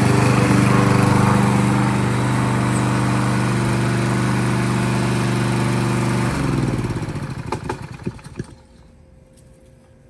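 Yardworks self-propelled gas lawnmower engine running steadily, then cut off about six seconds in. It winds down with falling pitch and a few sharp pops as it stops, a backfire on shutdown.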